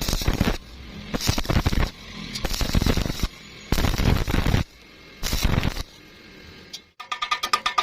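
Welding arc crackling in five short bursts of under a second each, with quiet gaps between them, as in a series of short welds or tacks. Music with a steady beat comes in near the end.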